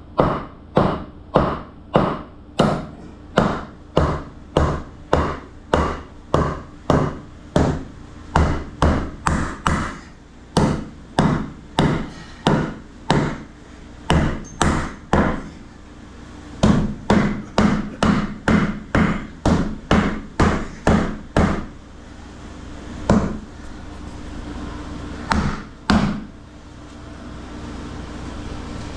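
Hammer blows struck in a steady run, about two a second, for some twenty seconds, with brief pauses, then a few scattered blows near the end.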